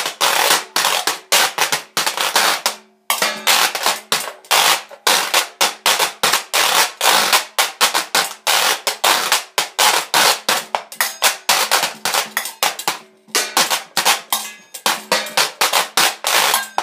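Homemade washboard with an added bowl and vintage tobacco tin, played as fast rhythmic percussion of scraped and struck strokes, about five a second. The playing breaks off briefly about three seconds in and eases for a moment about thirteen seconds in.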